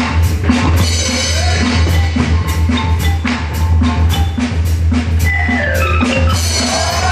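Live circus band music: a steady drum beat of about two strokes a second over a constant low bass, with a melody line that slides downward about five seconds in.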